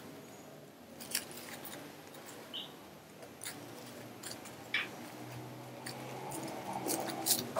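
Clear plastic cling film crinkling and rustling in the hands as it is wrapped around a bar of homemade soap, with scattered light crackles.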